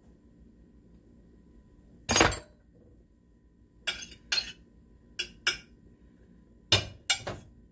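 A metal fork clinking and scraping against a white Corningware ceramic dish while butter is worked into rice, in a string of short sharp clinks. A louder knock comes about two seconds in.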